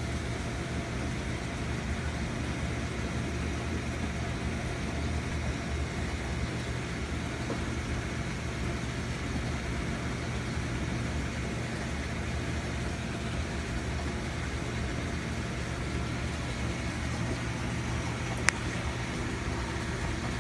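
Steady low hum of a running reef aquarium's equipment, with one sharp click near the end.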